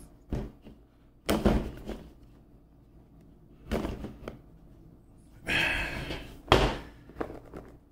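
A small cardboard phone box handled and pulled at by hand as it is worked open: a series of knocks and short scrapes of the tight-fitting cardboard, with the loudest, sharpest thump about six and a half seconds in.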